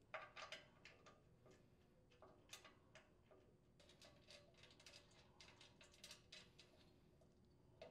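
Faint, scattered small metallic clicks and ticks of washered screws being handled and threaded by hand into a metal housing, with near silence between them.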